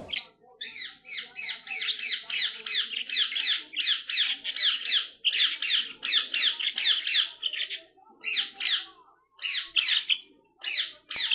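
Pet budgerigars chattering and squawking in fast strings of short chirps, running almost without pause for the first eight seconds, then breaking into shorter bursts with gaps between.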